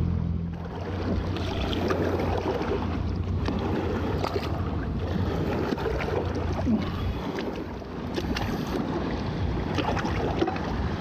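Lake water lapping and splashing against shore rocks, with wind buffeting the microphone and scattered small clicks; a low hum fades out within the first second.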